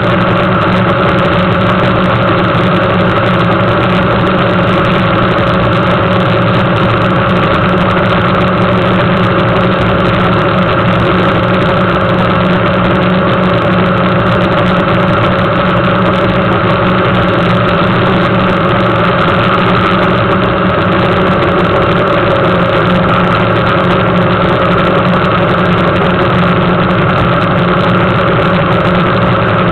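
Suzuki GSX750F motorcycle's inline-four engine running under way at a steady pitch, with no change in revs.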